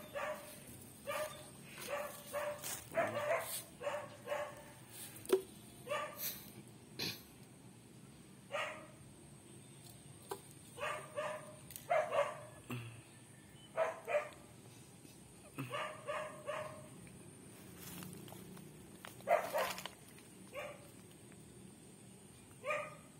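A dog barking over and over in quick runs of short barks, pausing now and then.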